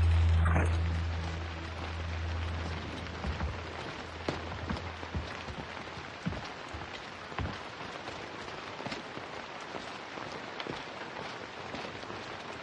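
Steady rain falling, with scattered drops ticking. A low, held music note fades out over the first two seconds.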